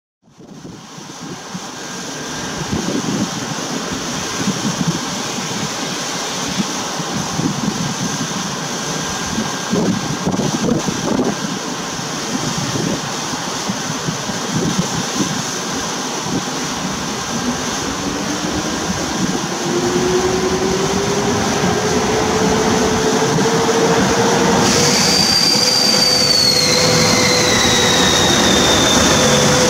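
EP09 electric locomotive at the head of a passenger train, running at a standstill and then starting away. From a little past halfway a whine rises in pitch and levels off as it gathers speed, and near the end a higher whine falls in pitch as the locomotive passes close by.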